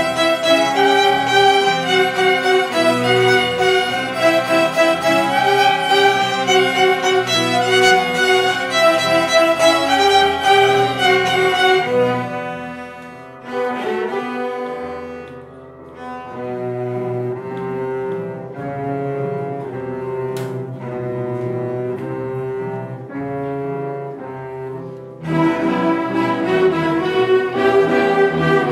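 Background music played on bowed strings, cello and violin, busy with many quick notes. About twelve seconds in it drops to a quieter passage of longer held notes, and the full, busy playing returns near the end.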